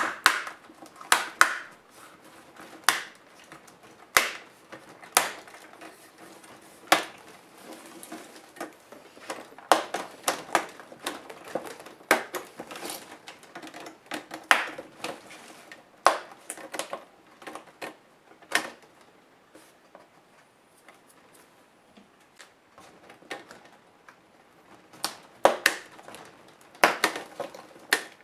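Plastic front bezel of an ASUS G71G laptop screen being pried off by hand: irregular sharp clicks and snaps as its clips let go, with knocks of the display assembly being handled on the work mat. A quieter spell comes a little past the middle.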